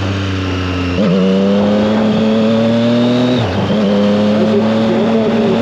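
Triumph Street Triple 765 RS three-cylinder engine pulling under acceleration, its pitch slowly rising, with brief dips in revs at gear changes about a second in and again past three seconds.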